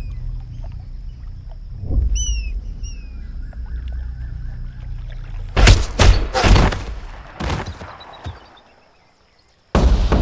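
Gunfire from a film soundtrack: several shots in quick succession about six seconds in, with a couple more after, over a low drone and a few bird chirps. The sound drops to near silence for about a second, then a sudden loud wash of sound comes in near the end.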